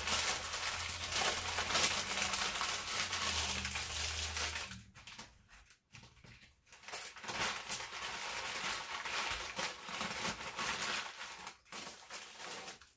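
Parchment paper crinkling as a sandwich is folded up in it. After a short pause about five seconds in, a plastic bag rustles as it is handled.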